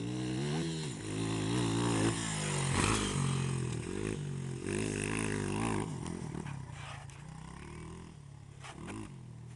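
Honda CRF80 dirt bike's small four-stroke single-cylinder engine revving up and down through the throttle as it rides and turns on dirt. The engine sound fades away after about six seconds as the bike moves off.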